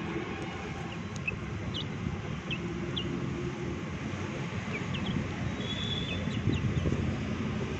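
Chickens pecking at cooked rice in a steel bowl, over a steady low rumble. Scattered short, high, falling chirps sound every second or so.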